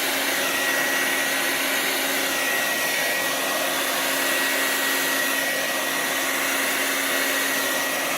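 Handheld blow dryer running steadily on its high setting with the cool button held in, blowing air with a faint steady whine over the rushing noise.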